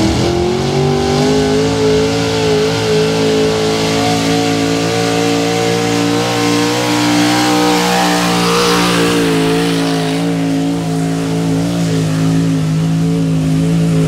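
Pro Stock pulling truck's big-block Chevy V8 held at high revs under full load while it drags a weight-transfer sled. The pitch climbs over the first second or two, then holds steady and loud.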